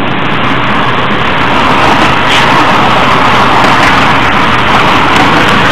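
Double-decker bus on the move, heard from inside the cabin: a steady engine drone under rushing road noise, growing louder about two seconds in.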